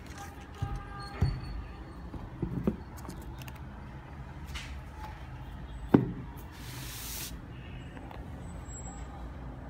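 Handling noise: a few soft knocks and taps, one sharp knock about six seconds in, then a brief rustle, over a steady low background hum.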